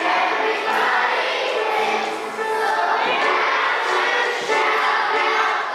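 A large group of children singing a song together, with music.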